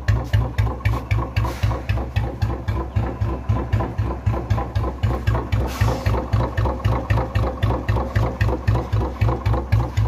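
Single-cylinder motorcycle engine idling through a chrome silencer, making a steady, even 'dug dug' thump of about three beats a second, the Bullet-style exhaust note.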